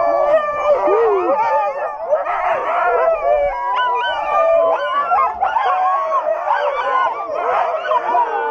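A pack of sled dogs howling, yipping and barking all at once, many overlapping high calls without a break: the excited din of dogs hitched in harness before a run.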